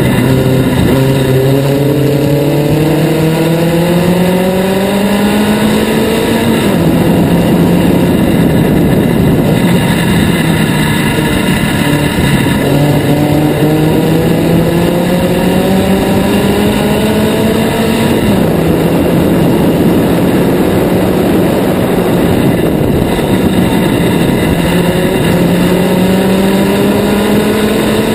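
Formula Sheane single-seater race car engine heard from on board under hard acceleration. Its pitch climbs steadily, then drops sharply at each upshift, three times, with steady stretches in between.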